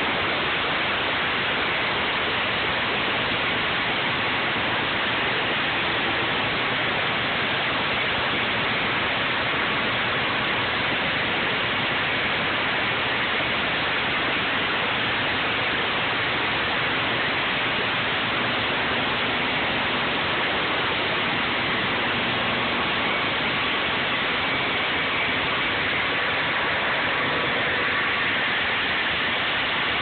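Husqvarna walk-behind concrete flat saw running steadily and wet-cutting a concrete slab: a loud, unbroken wash of engine and diamond-blade grinding noise.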